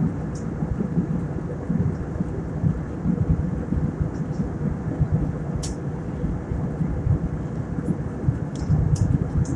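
Jet airliner cabin noise in flight: a steady, deep rumble of engines and airflow, with a faint steady hum above it and a few faint high ticks, as the plane begins its descent toward landing.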